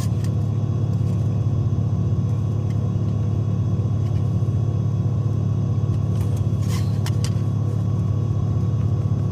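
Diesel semi-truck engine idling, a steady low rumble, with a few light clicks about two-thirds of the way through.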